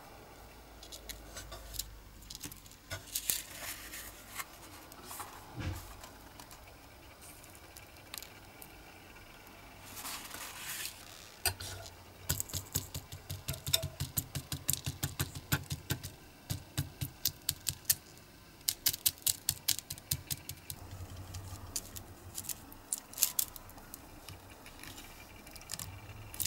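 Runs of quick, light clicks and taps from a small silicone casting mould and metal hand tools being handled on a workbench, with the clicking thickest in the middle and latter part.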